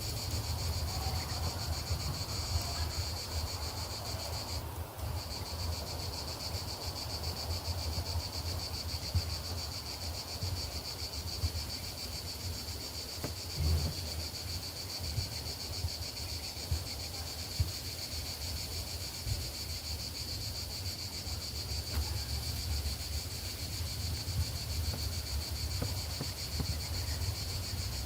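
Insects calling in a steady, finely pulsing high-pitched chorus, with wind rumbling on the microphone underneath.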